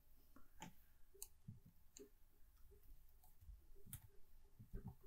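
Faint, scattered clicks of a computer keyboard and mouse being used, several separate clicks spread irregularly over a few seconds, over near-silent room tone.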